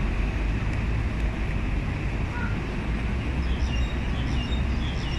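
Steady low outdoor rumble, like wind on the microphone or distant traffic, with faint short high chirps over it in the second half.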